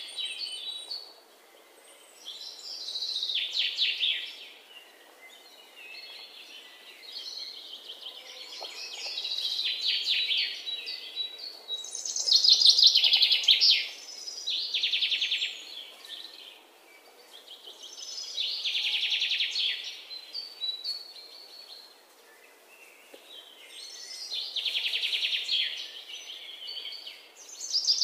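Songbirds chirping and singing in short trilled, high-pitched phrases, one every few seconds, each swelling and fading.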